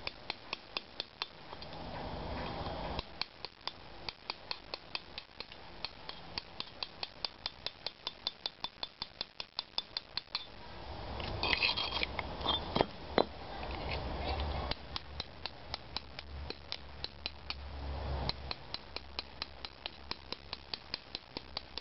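Hammer tapping a steel chisel to chip old lime mortar off a brick: rapid, light, evenly spaced metallic taps, about four a second, with a short pause partway through. The mortar is firmly stuck to this part of the brick, so it has to be chipped away bit by bit.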